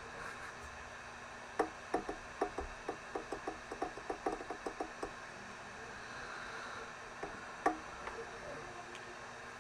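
A quick, uneven run of light clicks, about four a second for three seconds or so, then a few single clicks.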